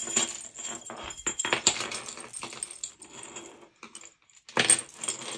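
Costume jewelry clinking and rattling as pieces are handled and rummaged through, beads and metal chains knocking together. Busy clatter at first, quieter for a moment, then a short louder jangle near the end.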